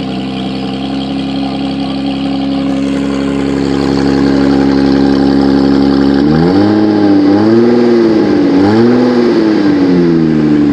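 Car engine running with a loud exhaust that escapes through a broken pipe at the resonator: a steady idle, then revved three times in the last few seconds, the pitch rising and falling with each rev.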